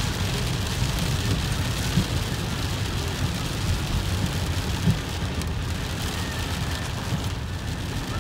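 Rain on a car's windshield and roof heard from inside the moving car: a steady hiss over a low rumble of the car on the wet road, with a couple of soft thumps about two and five seconds in.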